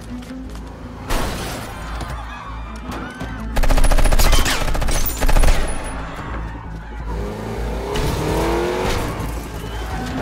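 Film action soundtrack: two loud bursts of rapid automatic rifle fire, about three and a half and five seconds in, over film score music and car sounds.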